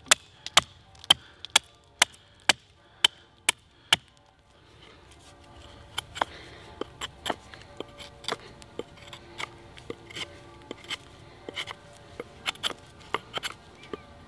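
Fiskars Norden N10 axe chopping dead wood to carve a point on a stake: sharp chops about two a second for the first four seconds. After that, background music comes in, with further irregular chops under it.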